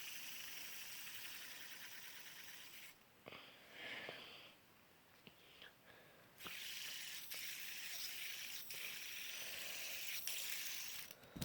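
A fidget spinner spinning with a faint steady whir. It stops about three seconds in and starts again a few seconds later, with a few light clicks in between.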